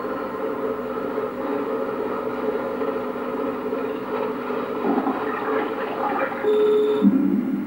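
Soundtrack of a horror film's cursed videotape playing through an old CRT television's speaker: a dense, scratchy noise drone, with a short steady tone near the end, followed by the loudest moment.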